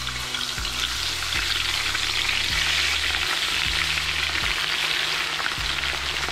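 Marinated rabbit pieces sizzling in hot oil as they are laid by hand into a cast-iron pot, the frying hiss building as more pieces go in.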